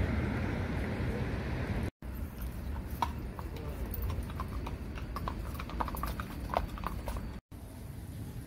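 Hooves of ridden horses clip-clopping at a walk on a paved path, in irregular clops from about three to seven seconds in. Before them, a short stretch of low street rumble; the hooves cut off abruptly near the end, followed by a steady outdoor hiss.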